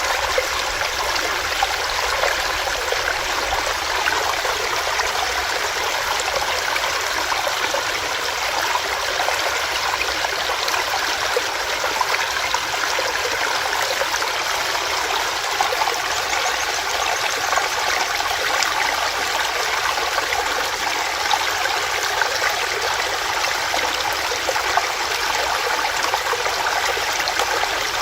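Small rocky stream: water running and splashing over rocks in a steady, unbroken rush.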